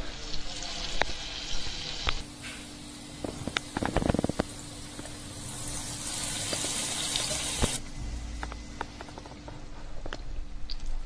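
Medu vada batter sizzling and bubbling in hot oil in a kadhai as vadas deep-fry and more are dropped in, with a louder stretch of hissing from about six to eight seconds in. Scattered small clicks and a low thump about four seconds in come through as well.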